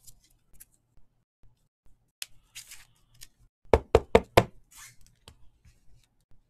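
Four quick, sharp knocks in a row, a little past halfway, with brief rustling of trading-card packaging just before and after them.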